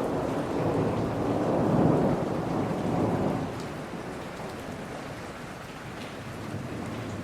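Steady rain falling in a forest, with a low rumble of thunder that swells for the first couple of seconds and dies away about halfway through, leaving the even hiss of the rain.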